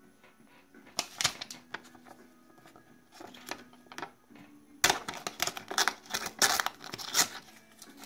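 A sticky note's paper rustling and tearing as a 3D-printed PLA toy blade and fingers work at it, in short crackly bursts: one about a second in, another about halfway, and a busier run over the last three seconds.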